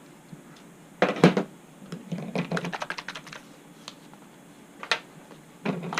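Small sharp clicks and light taps of screws and a screwdriver being handled against the plastic and metal tail parts of an RC helicopter. There are two louder clicks about a second in, a quick run of rapid clicks after that, and single taps near the end.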